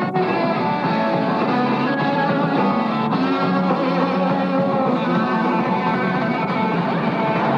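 Rock music with guitar playing, steady and continuous, with a momentary break just after it starts.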